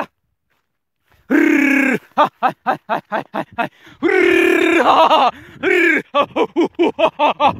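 A man shouting to drive cattle off a crop field: two long drawn-out cries, with runs of short repeated calls in quick succession between and after them, the last run at about five calls a second.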